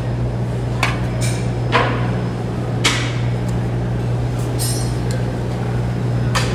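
Sharp metallic knocks and clinks, about six strikes a second or so apart, one ringing briefly about four and a half seconds in, as sand is shovelled over hot stirrup castings. A steady low hum runs underneath.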